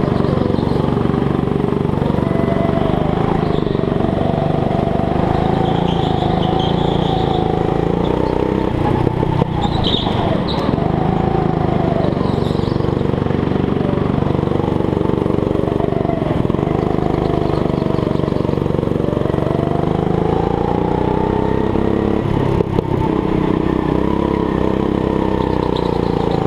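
Rental go-kart engine heard from on board, running hard with its pitch rising and falling as the throttle comes on and off through the corners. A couple of brief high squeals are heard over it.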